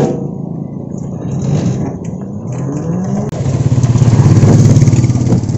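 Motor vehicle engine rising in pitch as it speeds up, then running loud and steady for about the last two seconds.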